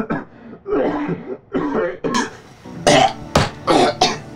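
A man clearing his throat with a rough, voice-like rasp, then coughing hard four or five times in the second half. He is sick and has lost his voice.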